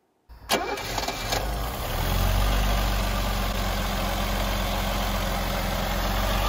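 Mercedes-Benz M110 twin-cam straight-six with Bosch K-Jetronic fuel injection idling steadily. Two sharp clicks sound in the first second and a half.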